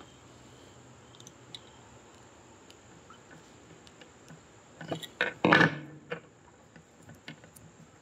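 Small clicks and scrapes of long-nose pliers working a brass banana plug connector as speaker wire is clamped into it, with a louder burst of handling noise about five to six seconds in.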